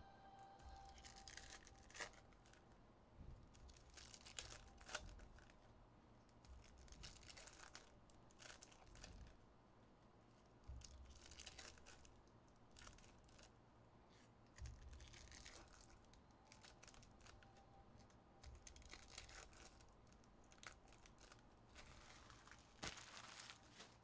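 Faint, intermittent tearing and crinkling of foil trading-card pack wrappers being opened, with a few light clicks from cards being handled.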